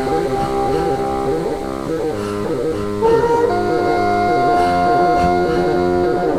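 Experimental music of electronically processed bassoon: long held notes over a busy, looping, wavering layer, with a new higher note coming in about three seconds in.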